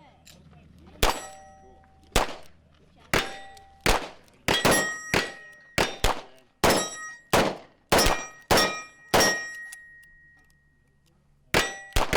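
Steel targets clanging and ringing as a string of .22 LR rounds from a Colt King Cobra Target revolver hits them. The strikes come about a second apart at first, then quicker. After a pause of about two seconds, two more come near the end.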